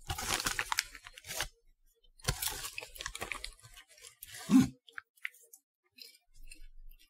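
A plastic snack bag crinkling as a hand rummages in it for popcorn, in two spells, with a dull thump about four and a half seconds in as the loudest moment; then faint crunching of popcorn being chewed.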